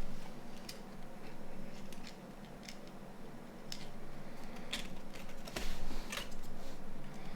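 Light, scattered clicks and taps of small phone parts being handled and fitted during reassembly of a Nokia 9210, with a heavier knock and low bump about six seconds in. A faint steady hum sits underneath.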